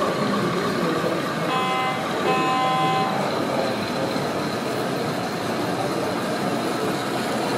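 O gauge tinplate model train running steadily along its track, with two short horn toots about one and a half to three seconds in, the second a little longer.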